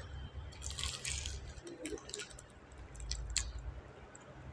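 Biting into and chewing crispy fried chicken lollipop: a dense crunch under a second in, then scattered crisp crackles of chewing.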